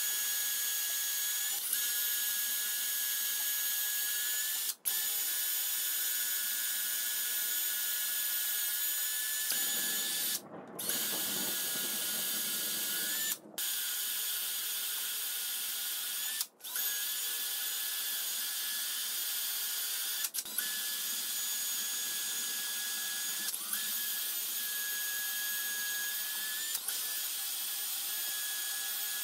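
Electric hand drill in a drill guide stand, drilling bolt holes into a steel lathe way with a steady whine. It stops briefly and restarts about five times.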